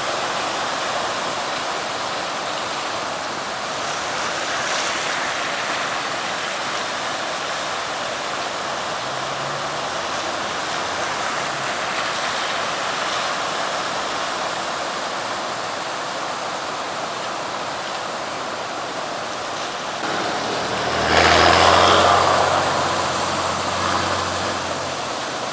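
Floodwater of a normally dry desert river rushing steadily over a road. Near the end a vehicle engine passes, the loudest part.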